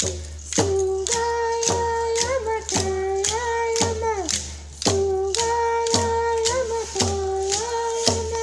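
Ohlone dance song: voices singing long held notes that step up and down, over a steady struck beat of about two strokes a second.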